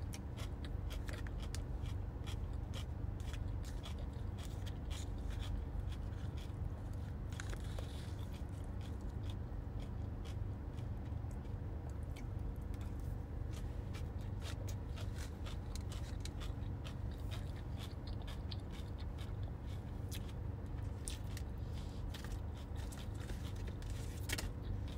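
Close-up eating sounds: coleslaw being chewed and crunched, with many small irregular mouth clicks, and now and then a fork scraping the small plastic cup. A steady low hum runs underneath.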